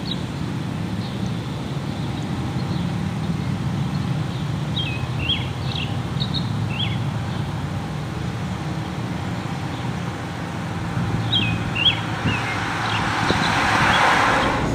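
A car drives past on the road, its tyre noise swelling near the end, over a steady low rumble. Birds chirp in short calls in two spells, about a third of the way in and again later.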